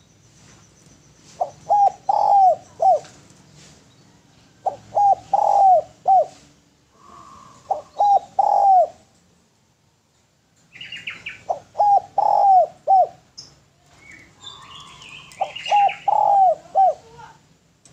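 Spotted dove (derkuku) cooing: five repeated phrases, each a few short coos and one longer, falling coo, coming every three seconds or so with a short pause before the middle. Higher chirps of another bird sound around the middle and near the end.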